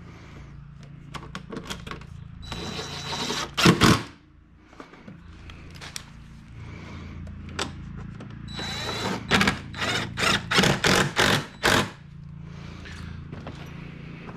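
DeWalt cordless driver running screws into plastic body panels, in two spells about 2.5 s and 9 s in. Each spell starts with a steady whine and ends in a string of short trigger pulses, with light clicks of screws being handled between them.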